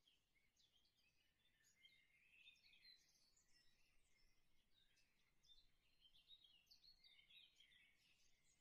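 Near silence, with faint high chirps throughout.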